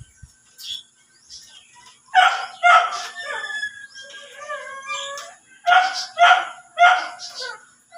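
A dog barking in two runs: three barks about two seconds in and four more near the end, with fainter whining between them.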